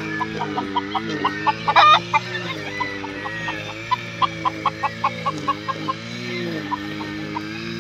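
Chickens clucking in quick short notes, about four or five a second, with one loud sharp call about two seconds in. Underneath runs the steady drone of a grass cutter's engine, wavering a little in pitch.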